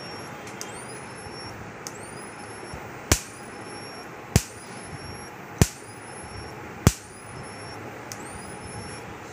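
Jhatka machine (electric fence energizer) firing its pulses about every 1.25 seconds. Each pulse gives a short click with a brief rising high-pitched whine from its transformer. Four pulses in the middle are loud sharp cracks.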